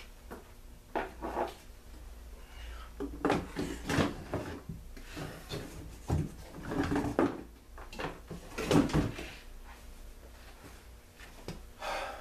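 Irregular knocks, clatters and rustling of objects being handled and moved about, in several short bouts: someone rummaging for a lost part.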